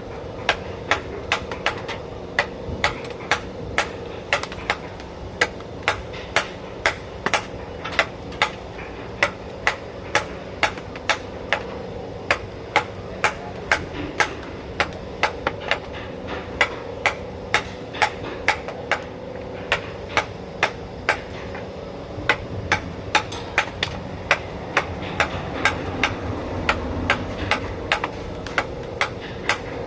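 Mallet repeatedly striking a carving chisel into wood, about two blows a second, over a steady hum.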